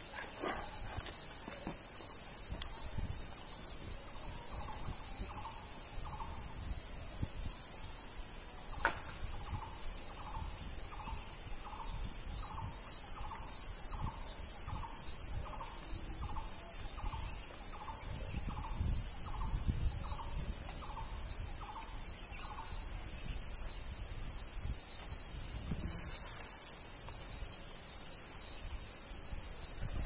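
Steady shrill insect chorus, cicadas or crickets, with two high pitches that run without a break. Through the middle a bird repeats a short note roughly one and a half times a second, about twenty times over.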